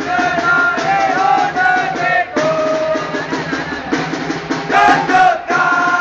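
A group of football ultras singing a terrace chant in unison, with drums beating time.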